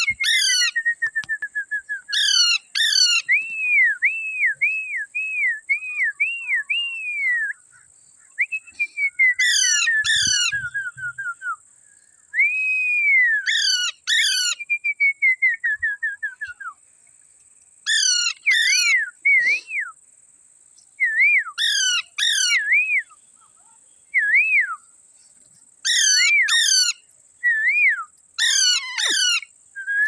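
Rose-ringed parakeets calling in bursts: pairs of sharp, piercing high notes, strings of short rising-and-falling whistles, and long falling whistled glides, with short pauses between bursts. A faint steady high whine lies underneath.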